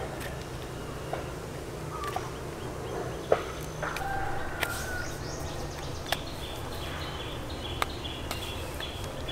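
Bird calls, with scattered sharp clicks and knocks; the loudest click comes about three seconds in.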